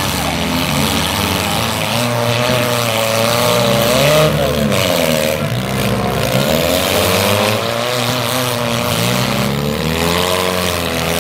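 Engines of several demolition derby cars running together and revving, their pitch repeatedly rising and falling as the cars accelerate, back up and push into each other.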